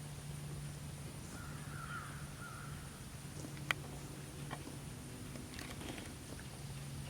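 A bird calls once for about a second and a half, starting about a second in, over a steady low hum, with a sharp click just past the middle.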